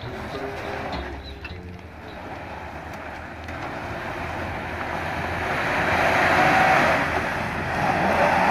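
Lifted Ford Explorer Sport Trac climbing a steep rock ledge, its engine revving under load and its tyres scrabbling on rock. The noise swells about six seconds in and again near the end.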